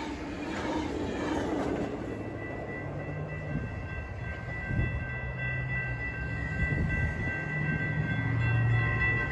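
Metrolink commuter train passing a grade crossing: wheels clatter over the rails as the last car goes by for the first couple of seconds, then the train pulls away. About two and a half seconds in, the crossing's warning bell starts ringing steadily, over a low rumble.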